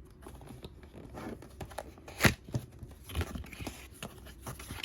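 Toy packaging box being opened by hand: scattered scrapes, taps and crinkles of cardboard and packing, with one sharp click a little past two seconds in.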